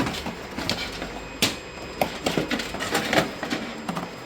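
Irregular clicks and light knocks of PC components being handled, such as the CPU cooler fan and motherboard, with a sharper knock about a second and a half in.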